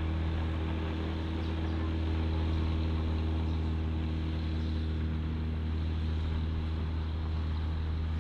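Small floatplane's propeller engine running at a steady low drone as it taxis on the water.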